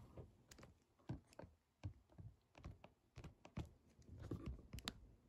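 Near silence broken by faint, irregular clicks and light knocks, a few each second and a little busier near the end: small handling noises in a small room.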